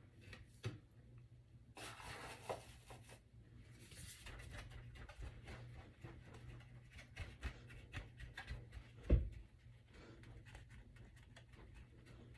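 Faint handling noises in a small room: scattered light clicks and rustles, with a brief rustle about two seconds in and a single dull thump about nine seconds in.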